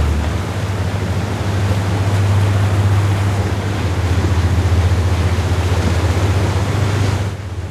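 Wind blowing across the microphone: a loud, steady rush with a deep rumble underneath, which eases suddenly near the end.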